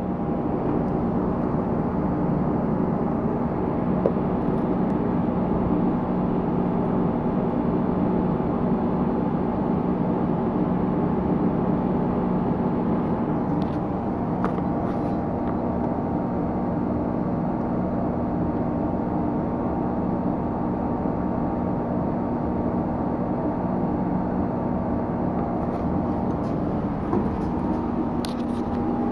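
2007 Honda CBR600RR's inline-four engine idling steadily at an even pitch.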